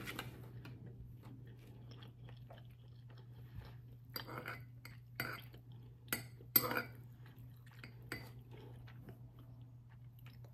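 A person eating: quiet chewing with small clicks of a metal fork against a ceramic bowl, and a few sharper clinks about four to seven seconds in, over a faint steady hum.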